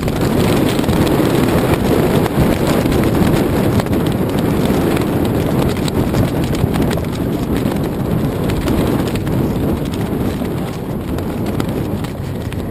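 Wind buffeting a GoPro camera's microphone: a steady, rough rumble that eases slightly near the end.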